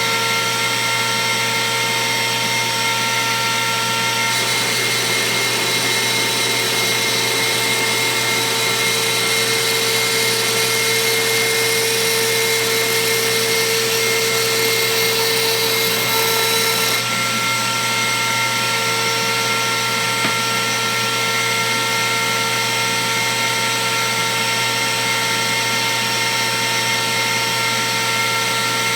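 A router table's router running steadily with a high whine. From about four seconds in to about seventeen seconds, a hiss and a stronger tone are added as the 1/8-inch single O-flute down-spiral bit cuts into acrylic; after that the router runs free again.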